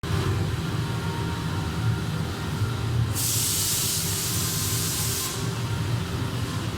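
A steady low hum, joined about three seconds in by an even hiss from the handheld fiber laser welder's head that lasts about two seconds and cuts off sharply: shielding gas blowing while a weld is run.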